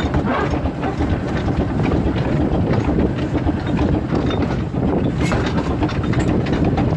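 Narrow-gauge Bagnall steam locomotive running along the line, heard from its footplate: a steady, loud running noise of the engine with the clatter of its wheels on the rails.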